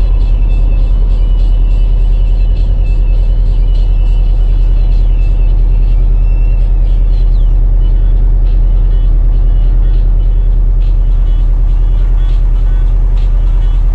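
Air-cooled 1776cc flat-four of a 1965 Volkswagen Beetle running under way through an A1 exhaust, a loud, steady, deep engine note at fairly constant speed.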